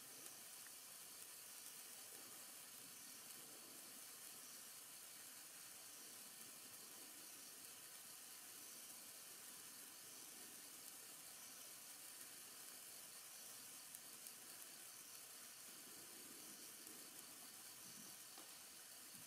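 A 36-inch Morning Glory stick sparkler burning with a faint, steady sizzle and hiss, with an occasional faint crackle of sparks.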